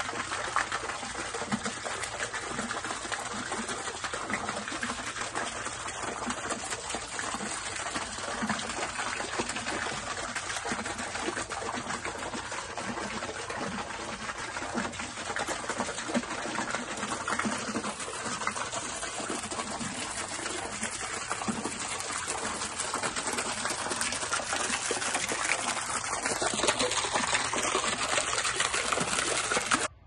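Water from a wall fountain falling in thin streams and splashing steadily into a shallow pool. The sound cuts off suddenly at the end.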